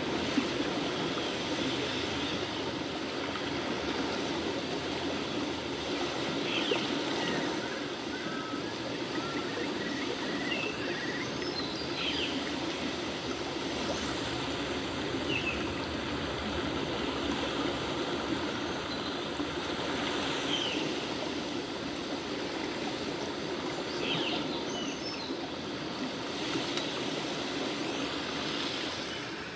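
Graphite pencil shading on paper: a steady scratching made of many quick back-and-forth strokes.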